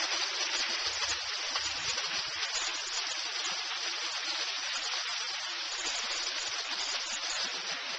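Water pouring and splashing over the boulders of a backyard pondless waterfall, a steady rushing hiss.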